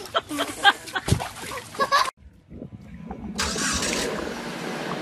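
Water splashing with short cries as a small child tumbles head-first into an inflatable paddling pool; the loudest splash comes about a second in, and the sound cuts off suddenly. After a brief lull, a steady rushing hiss of outdoor noise takes over.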